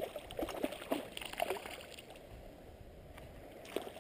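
A hooked rainbow trout thrashing and splashing at the water's surface on the line: a quick run of irregular splashes in the first second and a half, then it goes quieter, with one more small splash near the end.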